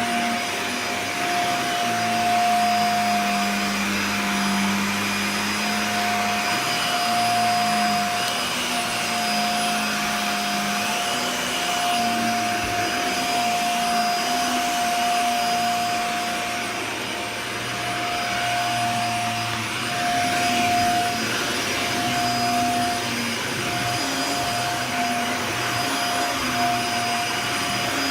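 Dyson Small Ball upright vacuum cleaner running continuously while vacuuming. It makes a steady motor whine over a lower hum that shifts slightly in pitch.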